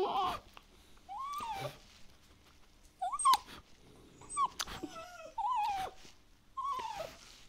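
Dog whining in short high-pitched squeaks, about six in a row with pauses between, each rising and then falling in pitch.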